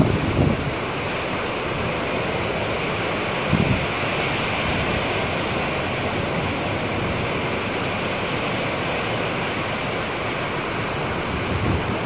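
Strong, gusty wind rushing through tall evergreen trees in a steady roar. There are a few low thumps of wind buffeting the microphone at the very start and again about three and a half seconds in.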